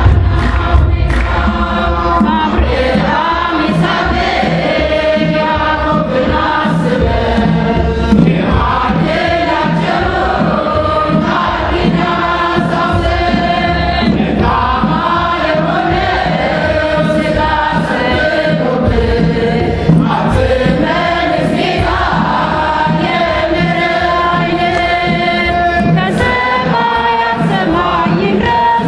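Ethiopian Orthodox Tewahedo Sunday-school choir of mixed voices singing a mezmur (hymn) together, the phrases flowing on without a break.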